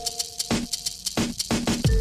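Background music with a beat: a deep kick drum, crisp hi-hat ticks and a held synth chord.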